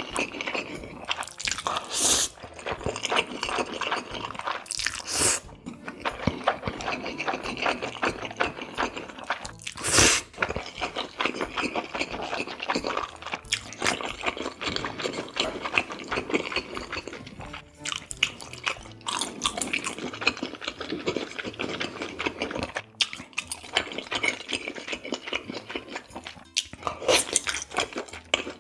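Close-miked eating of cold spicy mixed noodles with raw beef tartare: steady wet chewing, with a few short loud slurps, the loudest about ten seconds in.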